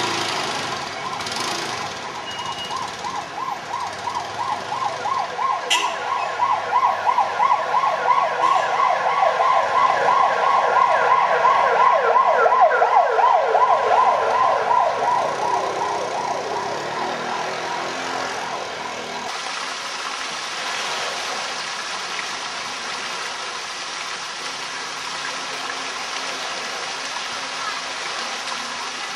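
A cicada's fast pulsing call that swells from about three seconds in, is loudest near the middle, and fades out by about sixteen seconds.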